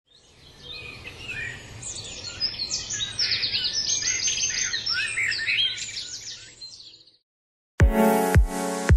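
Many small birds chirping and twittering together, fading in and then fading out about seven seconds in. After a short gap, electronic music with a heavy regular beat starts near the end.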